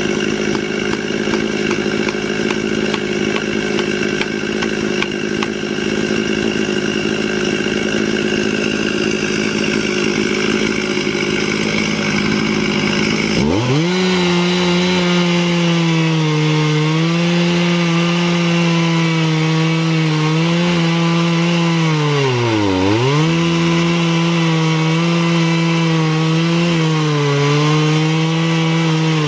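Stihl MS 440 two-stroke chainsaw running at high speed in an Alaskan chainsaw mill, ripping a southern yellow pine log. About 13 seconds in the engine drops low and then revs sharply back up to full speed as the cut gets under way. Later it dips once in pitch and recovers.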